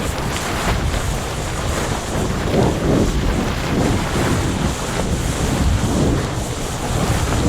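Continuous low rumbling roar of a volcanic eruption, swelling in several surges through the middle.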